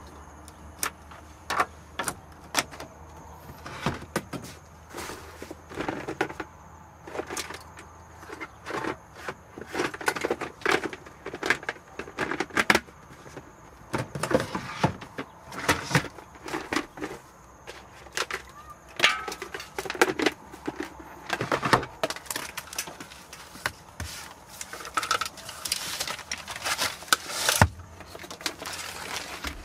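Irregular clicks, knocks and clatter of objects being handled, coming in quick, uneven succession with a few louder knocks.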